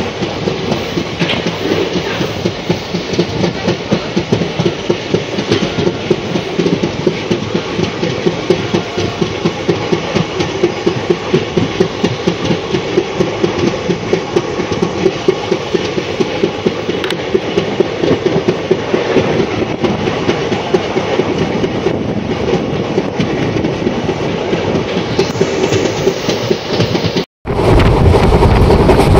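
Indian Railways passenger train running at speed: a steady rumble with a fast, rapid clatter of wheels over the rail joints. Near the end the sound cuts out for an instant and comes back louder, with a harsher rushing.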